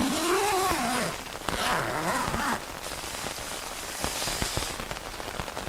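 Rain pattering steadily on the tent fabric, with two long gliding vocal sounds in the first couple of seconds, one rising and falling, the other dipping and rising.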